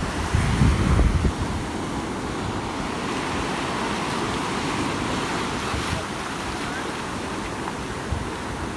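Ocean surf washing steadily onto the beach. Wind buffets the microphone in the first second or so.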